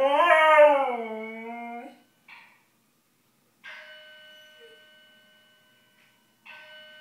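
Siberian husky howling in response to a fire alarm: one long howl that rises and then falls, ending about two seconds in. After it come two ringing electronic chimes, about three seconds apart, each fading slowly.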